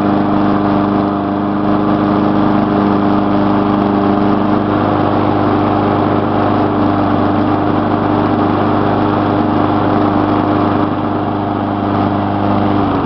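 Gasoline lawn mower engine running steadily at one speed, left running to burn off old gas in the tank.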